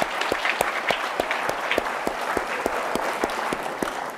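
A roomful of people applauding, many hands clapping together, with the clapping dying away at the very end.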